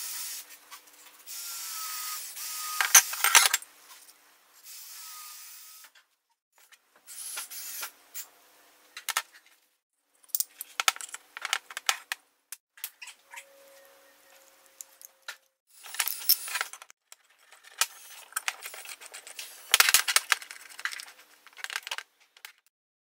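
Hands working on a chainsaw crankcase: a paper towel rustling as a part is wiped, then irregular clicks, taps and clinks as small parts and screws are handled and fitted, with short quiet gaps.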